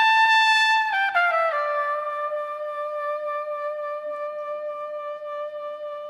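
Trumpet played solo: a high held note, then about a second in it steps down through a few quick notes to a lower long note that is held while slowly fading.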